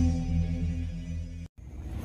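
Edited intro sound effects: a deep booming hit rings on as a low humming tone that fades, cut off suddenly about one and a half seconds in, then a rising whoosh begins near the end.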